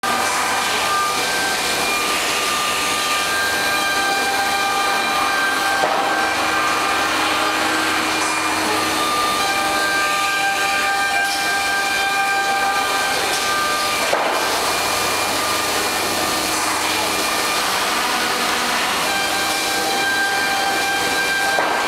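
HOMAG CNC woodworking center running: a steady rushing noise with several high, steady whining tones that shift every few seconds.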